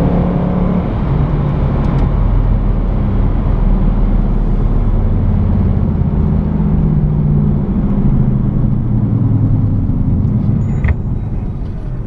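2007 Ford Mustang GT's V8 engine running on the road, its pitch stepping up and down several times as it is driven through the gears of its five-speed manual. The engine sound fades near the end, and a sharp click comes about eleven seconds in.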